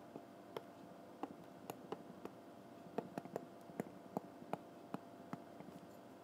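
Stylus tip tapping and clicking on an iPad's glass screen during handwriting: a string of faint, irregular sharp clicks, about three a second, over a steady low hum.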